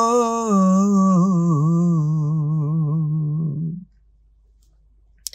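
A noha lament sung unaccompanied: the reciter holds one long note on the last syllable of "Zainab", wavering in ornament and sinking slightly in pitch before fading out about four seconds in. A single short click comes near the end.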